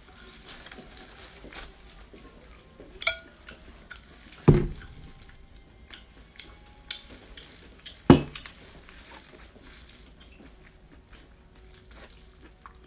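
Close-up eating and handling sounds: scattered soft clicks and smacks as an octopus tentacle is bitten and handled over a plate, with two sharp thumps about four and a half and eight seconds in.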